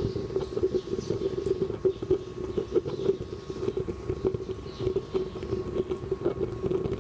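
Small waste-oil stove built from a fire extinguisher, burning hard with air forced in through a blower pipe: a steady, fluttering low tone from the flame with irregular crackles and pops throughout.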